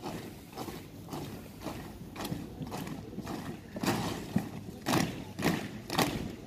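Regular footfalls striking hard ground, about two a second, fainter and uneven at first and becoming a louder, steady beat about four seconds in.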